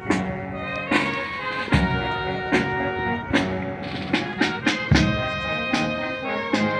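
Instrumental music led by brass, with a steady drum beat a little more than once a second.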